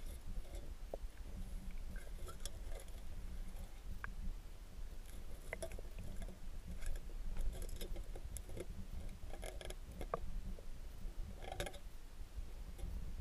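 Muffled underwater sound of a crab rake's metal tines dragging through seagrass and sand: scattered clicks and short scratchy scrapes over a steady low rumble.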